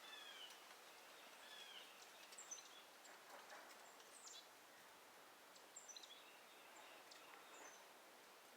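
Faint bird chirps over a quiet background hiss: scattered short, falling calls, the loudest about two and a half seconds in and again around six seconds in.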